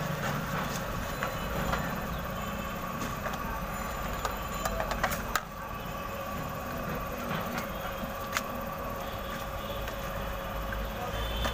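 Steady street noise with a constant hum, and a few sharp clicks from a vendor's plastic mixing mug and plates being handled, bunched about halfway through with one more a few seconds later.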